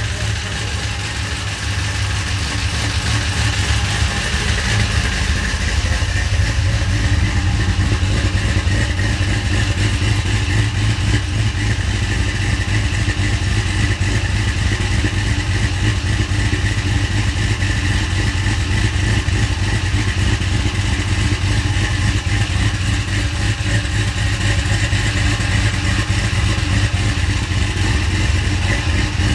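Cammed 6.0-litre LS V8 with a Sloppy Stage 2 camshaft, idling steadily; the engine has not yet been given its base tune.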